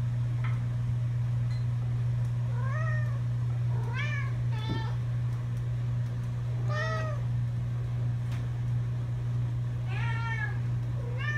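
Domestic cat meowing over and over: about four or five separate meows a few seconds apart, each rising then falling in pitch, over a steady low hum.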